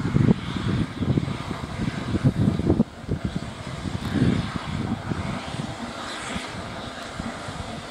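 Southern Railway S15 class 4-6-0 steam locomotive No. 847 pulling away, with heavy low exhaust beats over the hiss of steam from its open cylinder drain cocks. The low chuffing eases about three seconds in while the hiss carries on.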